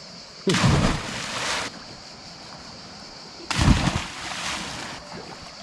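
Small sea waves breaking on the shore: two surges about three seconds apart, each starting sharply and dying away over about a second, over a steady high hiss.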